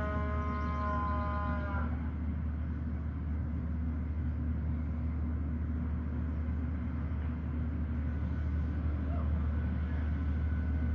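A held horn-like tone over a steady low rumble; the tone cuts off about two seconds in and the rumble carries on.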